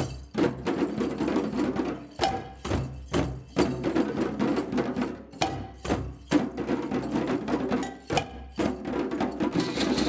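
A group of djembe hand drums played together by hand, sharp strokes in a steady rhythm of about two a second over the ringing of many drum heads.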